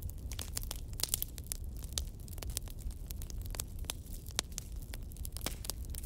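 Burning wood logs crackling: irregular sharp pops and snaps, several a second, over a low steady rumble of the flames.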